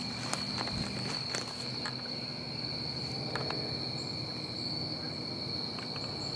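A steady high insect chorus trilling without a break. A few light crackles sound in the first couple of seconds and once more about halfway.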